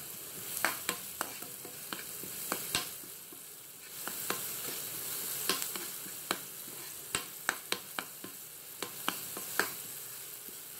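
Garlic and chili sizzling in hot oil in a pan, a steady hiss, while a utensil stirs them with many sharp, irregular clicks against the pan.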